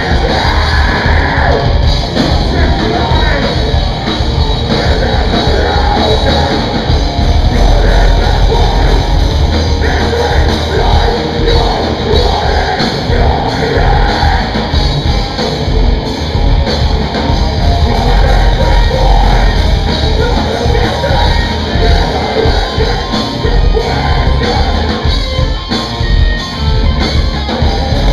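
Heavy metal band playing live and loud: distorted guitars, bass and pounding drums, with sung and shouted vocals.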